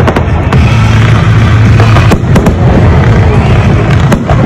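Fireworks going off in quick succession: a dense run of bangs and crackles over a steady low rumble, with a cluster of sharp reports about two seconds in and again near the end.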